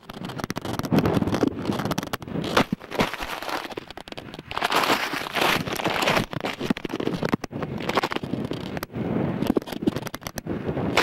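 Grass brushing and scraping against a kite-borne camcorder's housing as it skims and drags through the grass, picked up close by the camera's own microphone as irregular crackling and rustling in uneven surges.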